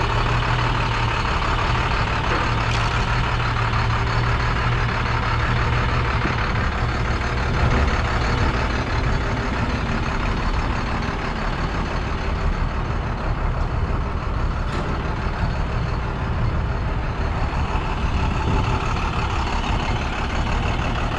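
International DT466 7.6-litre inline-six diesel idling steadily.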